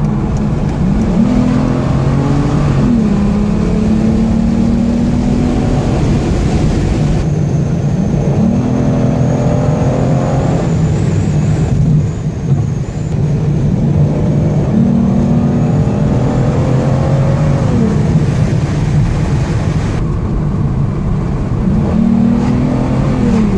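Aston Martin DB9's V12 engine being revved over a steady low rumble. About four times the pitch climbs, holds for a second or two, then drops back.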